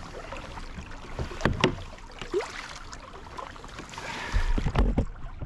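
Pedal-drive kayak turning on the water: water sloshing against the hull, with a couple of short knocks about a second and a half in. Gusts of wind rumble on the microphone about four seconds in.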